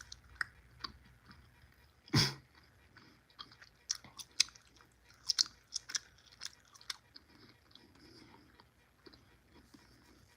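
A person chewing a jelly bean close to the microphone: scattered soft, wet mouth clicks, with one louder short noisy burst about two seconds in.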